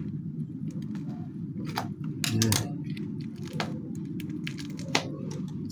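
Irregular clicks and crackles of a tightly sealed plastic shipping package being worked open by hand, over a steady low background hum.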